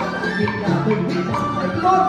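Traditional Vietnamese water puppet theatre music: a small ensemble playing a melody with sliding, bending notes over a steady low part.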